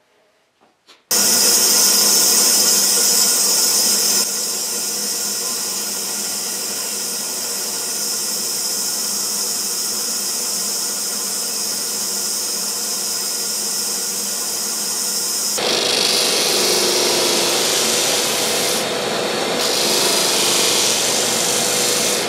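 A band saw cutting a small block of softwood, a steady hiss of the blade through the wood that starts suddenly about a second in. About two-thirds of the way through it gives way to a disc sander grinding the end of a wooden block.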